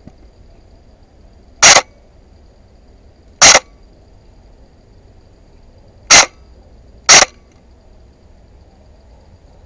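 Airsoft DMR firing four single shots, each short and loud, the last two about a second apart.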